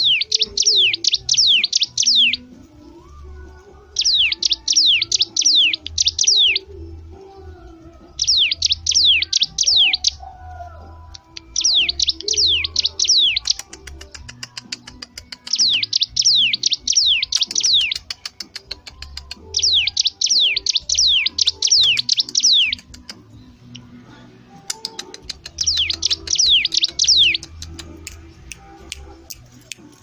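Caged cigun songbird singing energetically in repeated phrases of rapid, descending whistled notes. Each phrase lasts two to three seconds and is followed by a pause of about two seconds. From about halfway through, a fast run of sharp clicks sounds along with the song.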